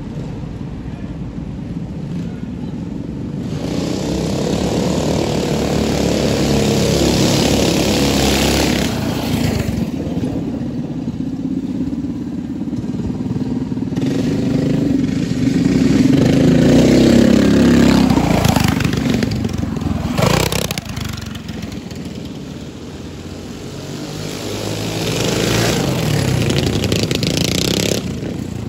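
Mini bike engines revving hard and running on a dirt drag strip, swelling and fading three times with rising and falling pitch, with one sharp crack about two-thirds of the way through.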